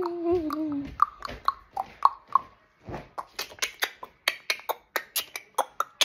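A sung note gliding slowly down and ending about a second in, then a string of sharp mouth clicks and pops, some of them pitched, like beatboxing, coming faster in the second half at about five a second.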